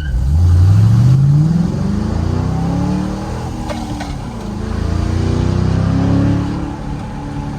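2006 Ford Mustang GT's 4.6-litre V8 through a Corsa Extreme axle-back exhaust, accelerating hard under full throttle: the loud exhaust note climbs steeply at first, then keeps rising in further pulls broken by gear changes, and settles to a steadier note near the end.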